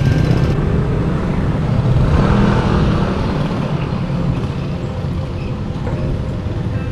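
Wind rumble on a moving bicycle-mounted camera's microphone while riding down a street, with road and traffic noise. The noise swells briefly about two to three seconds in.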